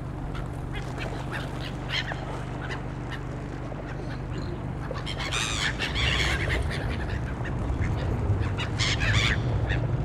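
A flock of gulls calling in short, repeated cries, the cries growing busier and louder from about five seconds in, over a low rumble.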